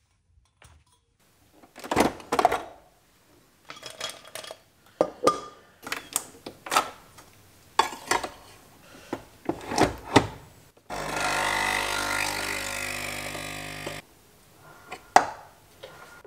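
Clinks and knocks of a steel dog bowl, a cup and a capsule coffee machine being handled. About eleven seconds in, the machine's pump buzzes steadily for about three seconds as it brews a coffee, then cuts off suddenly, followed by one more knock.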